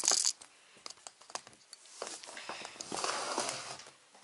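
Handling noise: a brief rattle at the start, then a few small knocks and, from about halfway, a stretch of rustling as the camera is moved and set down on the floor.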